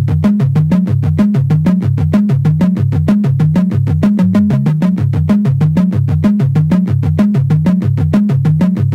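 Background music with a fast, steady beat and a repeating bass line.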